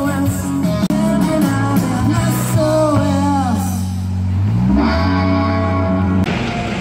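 Live rock band playing: electric guitars with bent notes over bass and drum kit. The music cuts off near the end.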